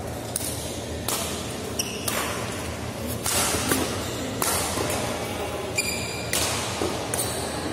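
Badminton rackets striking a shuttlecock in a doubles rally, a series of sharp hits about a second apart, each ringing briefly in the hall's echo.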